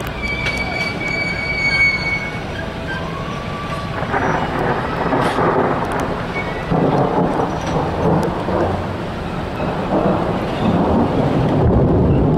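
Thunder rumbling in rolling surges over steady rain. A thin wheel squeal from the passing narrow-gauge passenger cars is heard in the first couple of seconds.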